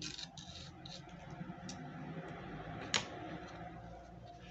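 Light handling sounds of a paper-covered wooden tray board being touched and shifted by hand: a few small clicks and one sharp tap about three seconds in, over a faint steady room hum.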